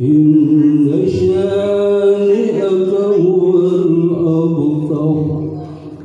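A man's voice reciting the Quran in the melodic murottal style through a microphone and amplifier: one long chanted phrase, the pitch held and moving in small steps, which stops just before the end.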